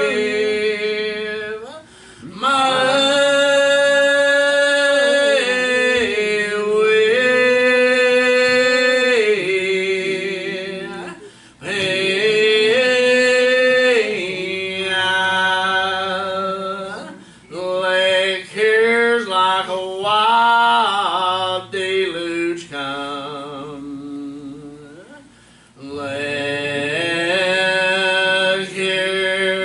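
Voices singing a hymn, holding long notes with brief breaks between phrases.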